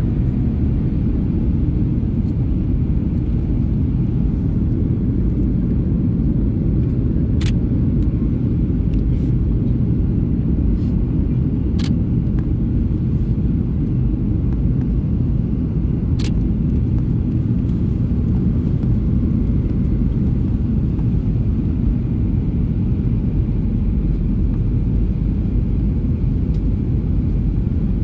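Steady low rumble of a Boeing 737-800's CFM56 turbofans and airflow, heard inside the passenger cabin during the descent. Three short clicks come through it, about a third of the way in, near the middle, and just past the middle.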